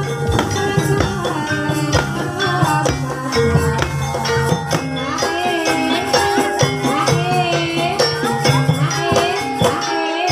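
Live Javanese gamelan music for an ebeg horse dance. Struck, held metal tones and regular drum and percussion beats play under a wavering sung melody.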